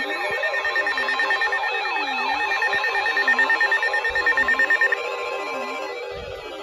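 Electronic alert tones layered together: a warbling tone sweeping up and down in pitch about once a second over a rapid pulsing beep, which stops about five seconds in.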